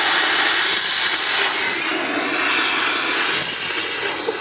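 Carbon dioxide fire extinguisher discharging in one steady, loud hiss as its liquid CO2 drops in pressure and flashes to vapour and fine dry-ice snow.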